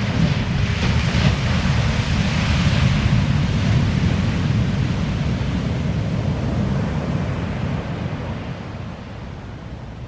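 Pacific Ocean surf breaking on a sandy beach: a wave crashes and its whitewater hisses over the first few seconds. The sound then settles into a steady low rumble that grows quieter near the end.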